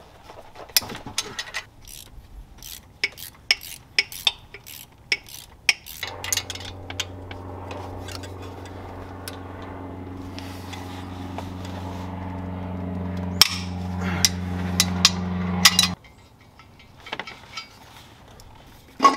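Hand tools clicking and clinking on metal while loosening exhaust manifold bolts. Through the middle, a steady low hum grows slowly louder, then stops abruptly, with more clicks over it.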